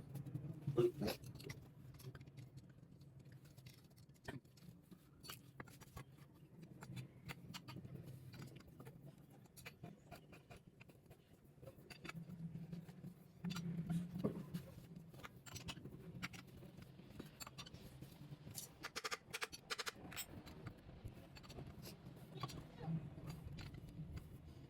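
Faint, scattered metal clicks and knocks as the pump head is fitted onto a monoblock water pump motor and its flange bolts are tightened, over a low steady hum.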